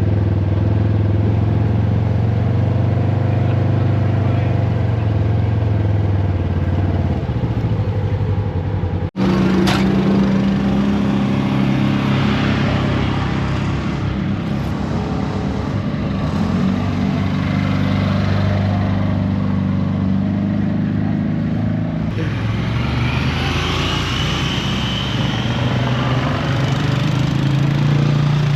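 Off-road ATV engine running under way on a trail, its pitch rising and falling with the throttle. The sound breaks off for an instant about nine seconds in, then carries on with a different engine note.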